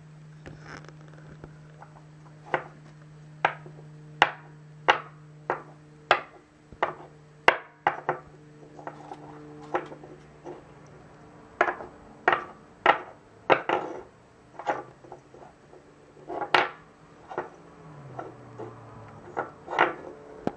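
Small carved wooden clog knocked and tapped on a wooden tabletop as it is handled: about two dozen sharp wooden knocks at an uneven pace, some in quick pairs. A faint steady low hum runs underneath and dips in pitch near the end.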